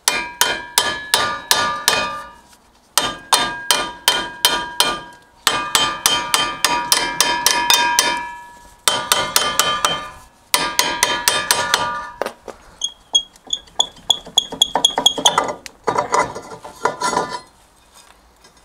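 Hammer beating on the rusty brake disc of a Mazda MX-5 NB to knock it loose from the hub: rapid metal-on-metal blows in several bursts with short pauses, each blow leaving the disc ringing.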